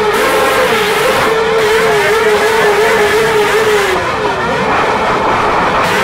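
Motorcycle engine held at high revs, a steady high note that wavers slightly, dips and comes back up about four seconds in.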